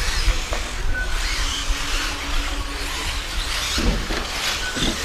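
Radio-controlled off-road race cars running around the track, with music playing at the same time. A short high beep sounds about a second in and again near the end.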